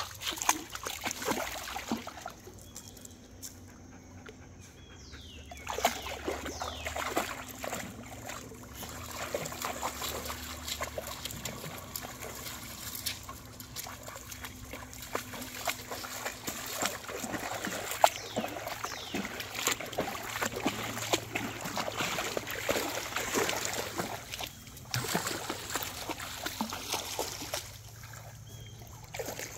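Dogs wading and swimming through shallow creek water, with irregular splashing and sloshing over a background of trickling water. The splashing drops off for a few seconds early on and again near the end.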